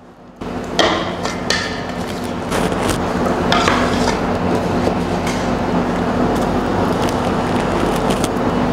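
Chocolate-and-biscuit mixture being scooped by hand from a pot into a plastic-film-lined loaf tin: repeated knocks and crinkles of the pot and film. Under them, a steady machine hum starts just after the beginning.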